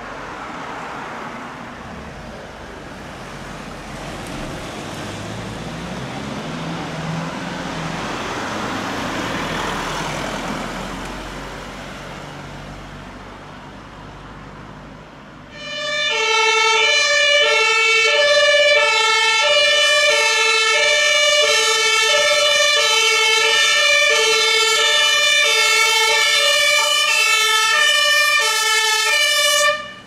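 Vehicle engine and tyre noise rises and fades, then about halfway through a fire engine's German two-tone Martinshorn comes on loud. It alternates between a low and a high note at a steady pitch, a high-low pair about once a second, and cuts off suddenly at the end.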